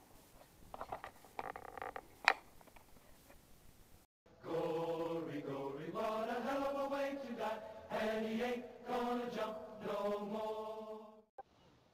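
Faint outdoor noise with one sharp click about two seconds in. Then, after a brief dropout, men's voices singing a slow chant with long held notes, which cuts off abruptly near the end.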